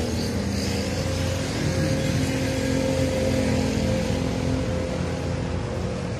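An engine running steadily at a constant speed: an even low hum with a held tone.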